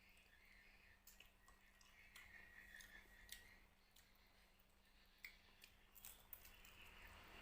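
Faint, scattered clicks and small smacks of someone eating fried carp, picking at the fish and chewing, at near-silent level.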